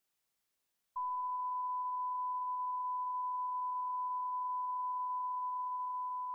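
Electronic test tone, a single steady beep at one pitch, starting abruptly about a second in: the tone that goes with a TV test card.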